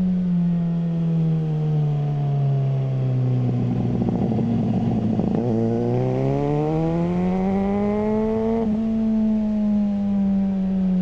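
Suzuki GSR600's inline-four engine through a GPR Ghost aftermarket exhaust, under way. Engine speed falls off for about five seconds with a rough crackle on the overrun, then climbs again with a steadily rising pitch. Near the end there is a brief break, like a gear change, and the engine settles at a slightly lower pitch.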